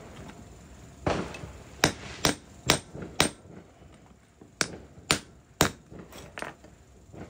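Hammer striking metal in two quick runs of sharp, ringing taps, about two a second, while a drive shaft U-joint is being reassembled, with its bearing caps tapped into the yoke.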